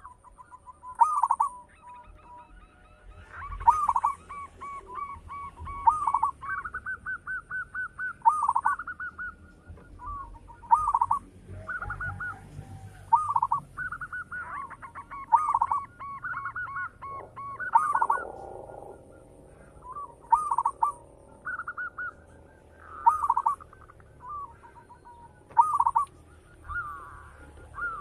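Zebra dove (Javanese perkutut) cooing over and over: short hooked coos with fast rolling trills, a phrase every second or two. A faint, high chirping trill comes and goes behind it.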